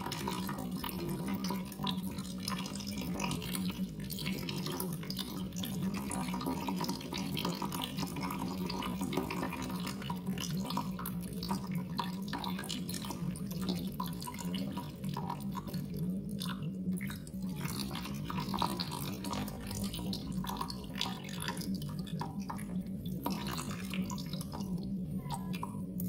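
Water dripping and trickling, a quick irregular patter of drops over a steady low hum.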